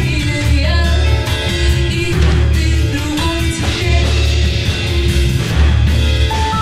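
Live band music: a woman sings a held melody over a strong electric bass guitar line, with guitar and drums behind her.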